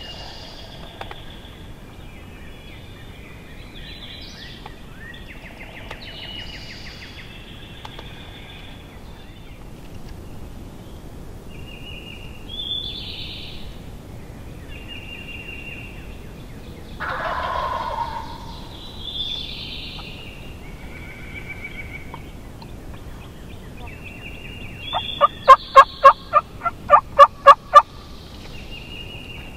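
Wild turkey gobbler gobbling very close and loud near the end, a rattling series of about nine rapid notes over roughly three seconds, with songbirds chirping in the background throughout.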